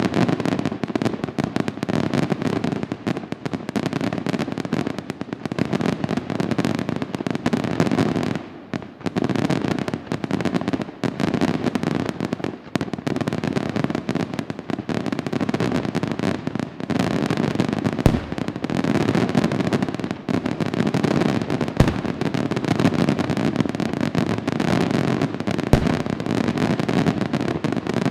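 Fireworks display bursting in a dense, continuous barrage of bangs and crackle, easing briefly about a third of the way in. In the second half, several heavier booms stand out, about four seconds apart.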